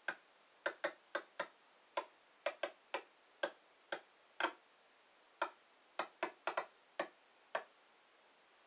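Irregular sharp clicks, roughly two a second, coming through the TV's speakers from a Roku 3 streaming player stuck on a gray loading screen. This is the static-like clicking of its glitching audio. The clicks stop about a second before the end.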